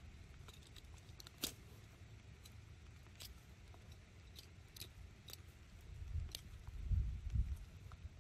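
A small knife cutting and snipping through a black plastic polybag around a seedling's root ball, giving scattered sharp clicks a second or so apart. Low rumbling comes in about six seconds in.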